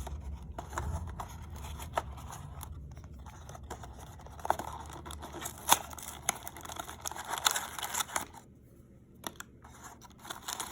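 Toy mystery-box packaging being torn open by hand: irregular tearing, crinkling and small clicks and scrapes, pausing briefly near the end.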